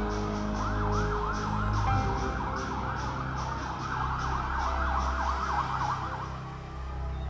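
A siren yelping, its pitch sweeping up and down several times a second, over a music bed of steady low notes and a light regular beat; the siren fades out near the end.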